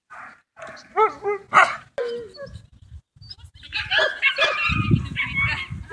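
Several dogs barking and yelping excitedly: a few short barks early, then a dense run of overlapping barks and yips from about four seconds in.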